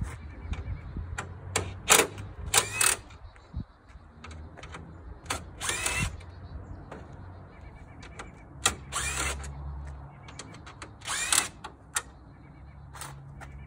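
Cordless drill backing out the bolts along the top of a truck grille, in about five short bursts of the motor spinning up and winding down a few seconds apart, with light clicks of the bit between them.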